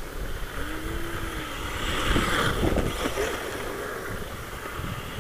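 Wind buffeting the microphone, over a distant electric RC buggy (HPI Apache C1 Flux with a brushless motor) running across loose dirt and snow. Its motor and tyres swell about two seconds in and then fade.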